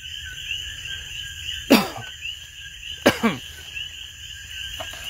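A steady night chorus of frogs and insects, many short chirps overlapping, with two short loud vocal sounds from a person, like coughs, about a second and a half apart near the middle.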